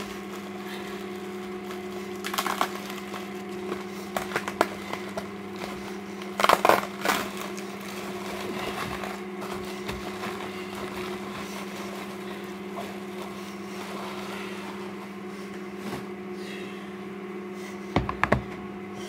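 Bubble-wrap and plastic packaging crinkling and crackling in short bursts, with a few clicks and knocks, as a DVD box set is handled and unwrapped. The loudest bursts come about six seconds in and near the end, over a steady low electrical hum.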